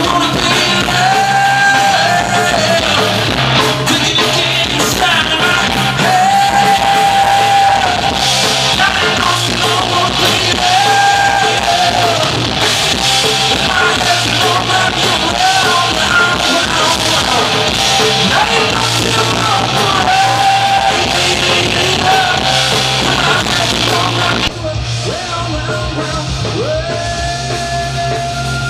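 Live rock band playing: a male singer's held sung lines over electric guitar, bass guitar and drum kit with crashing cymbals. Near the end the cymbals drop out and the band plays a little quieter.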